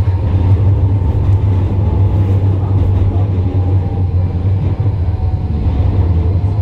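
Tram running along the track, heard from inside: a steady low hum with a faint motor whine that slowly falls in pitch.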